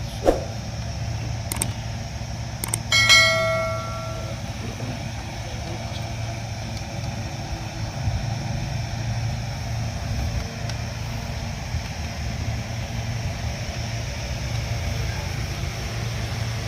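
A steady low hum throughout, with a few sharp clicks early on and one metallic ringing strike about three seconds in that fades over a second or so.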